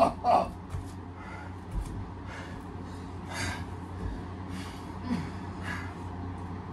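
A person breathing hard after exertion: repeated heavy breaths and gasps, roughly one a second, following a short loud vocal outburst right at the start.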